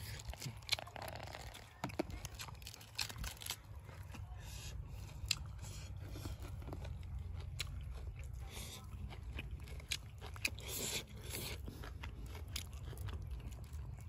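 Close-up eating sounds: a person chewing and crunching raw prawns and fresh vegetables, with sharp crackles scattered throughout over a steady low rumble.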